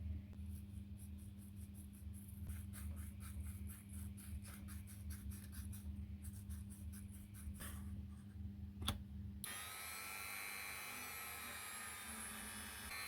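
Small power tool working metal: a steady low hum with rapid, evenly repeated rubbing strokes. About nine seconds in it cuts abruptly to a steady whir with several high whining tones.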